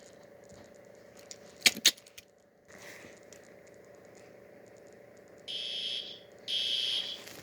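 Fire alarm set off: two sharp clicks about two seconds in, then the alarm sounding near the end in two high-pitched pulses, each under a second long.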